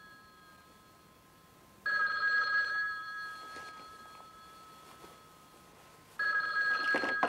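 Landline telephone bell ringing twice, about four seconds apart, each ring a steady bright tone that fades away.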